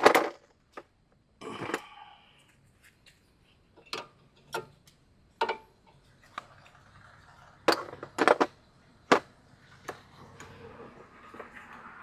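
Scattered metal clicks and knocks of hand tools (wrench and socket) on a car's front sway bar end link as the nut is worked at, irregular and spaced up to a couple of seconds apart, with a faint steady noise building near the end.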